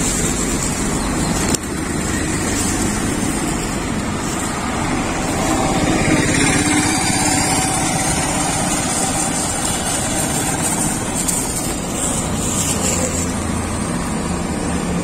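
Steady street traffic noise, with a small engine running close by.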